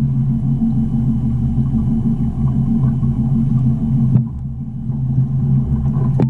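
Small boat's outboard motor running steadily, a low hum with a steady drone underneath.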